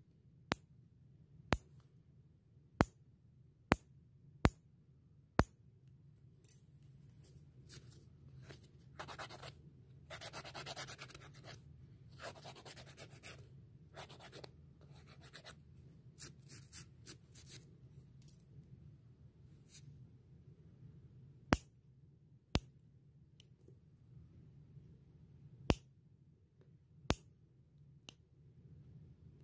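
Metal nail clipper snipping through toenails in sharp single clicks, seven in the first five seconds or so. Then several seconds of rasping as a nail file is rubbed across a toenail. Five more clips come near the end.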